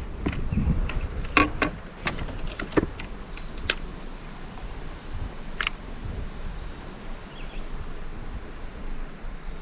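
Scattered sharp clicks and knocks, clustered in the first four seconds with one more near six seconds, over low wind and handling noise.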